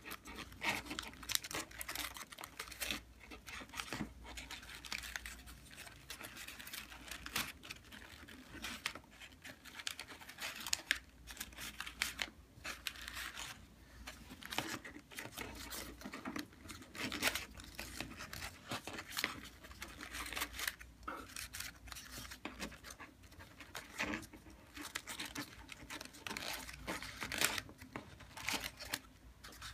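Paper rustling and crinkling as hands fold, crease and tuck modular origami paper units, a quick irregular run of short rustles with no pauses longer than a moment.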